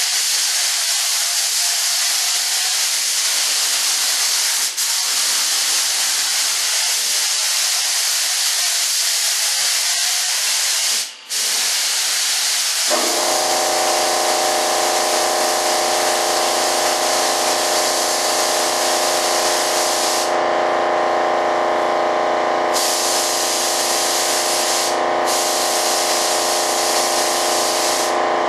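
Air touch-up spray gun hissing as it lays light misted coats of Partall PVA film mold release at high air pressure, with short breaks where the trigger is let go. About halfway through, a steady motor hum starts and keeps running under the spraying, the shop air compressor kicking in.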